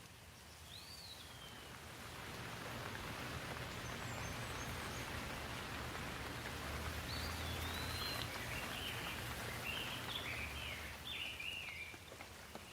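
Rain falling on leaves, a steady hiss that swells after a couple of seconds and eases near the end. A bird whistles once near the start and gives a run of short chirps in the second half.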